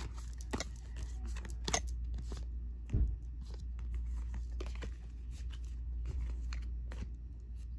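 Moonology oracle cards being shuffled and handled by hand: scattered soft flicks and taps of card stock, with one louder knock about three seconds in, over a steady low hum.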